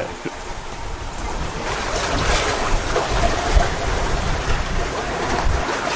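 Sea water rushing and washing past a sailboat under way on the open ocean, with wind rumbling on the microphone; it swells slightly about two seconds in.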